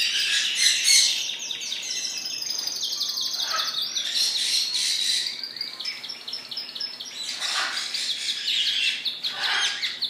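Male Spanish Timbrado canaries singing, with long runs of fast, evenly repeated high notes like rolling trills that carry on without a break.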